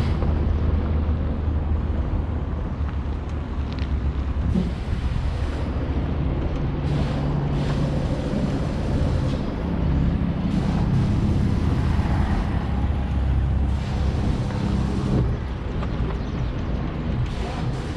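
A boat on its trailer being towed over rough dirt road: a steady low rumble of the tow car and rolling trailer, with wind buffeting the microphone.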